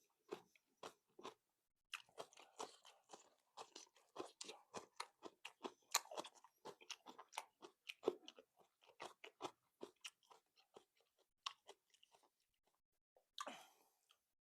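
Close-up crunching and chewing of raw cucumber: many short crisp crunches in quick irregular succession, with a brief soft rush of breath-like noise near the end.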